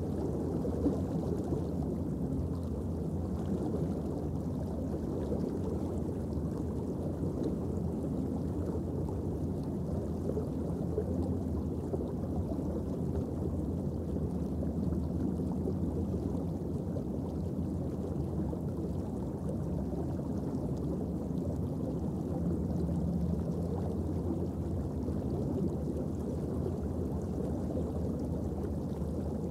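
Steady low underwater rumble picked up through a camera housing, with a faint steady hum beneath it.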